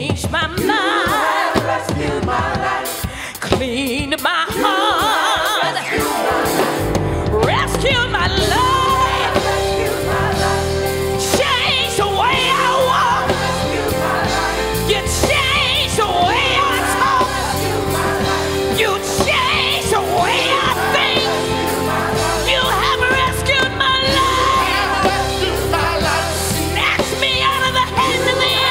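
Live gospel worship singing: a lead voice with sparse backing for the first six seconds or so, then a full accompaniment with a deep low end comes in and the singers carry on over it.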